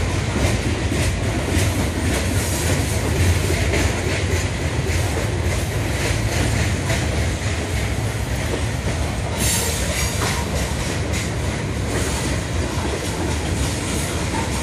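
Freight train's boxcars rolling past: a steady rumble of steel wheels on rail with repeated clicking over the rail joints, and a brief harsh high-pitched burst about nine and a half seconds in.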